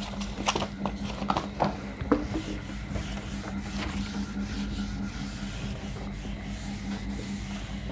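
A whiteboard duster rubbing and wiping across the board, with a few light knocks against the board in the first two seconds. A steady low hum runs underneath.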